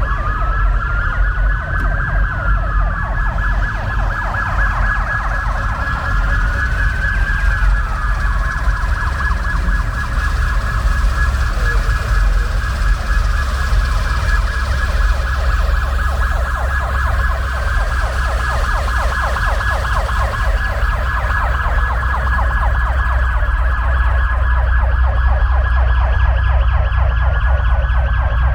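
Emergency-vehicle siren wailing, its pitch slowly rising and falling about every five seconds over a fast pulsing tone, with a steady low rumble underneath.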